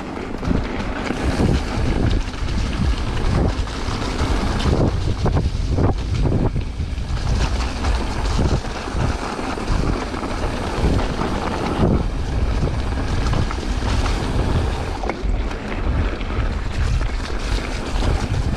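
Wind rushing over the microphone while a mountain bike rides fast along a trail, with frequent bumps and rattles over rough ground.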